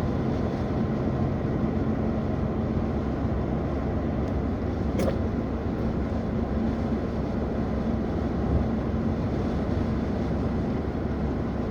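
Road and engine noise inside a moving car's cabin: a steady rumble and hiss with a low hum. A single brief sharp sound comes about five seconds in.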